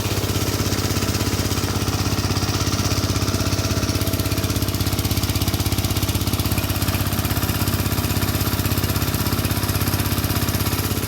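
Small engine of a motorcycle-washing pressure washer, fuelled by a 3 kg LPG cylinder, running steadily at a fast even pulse.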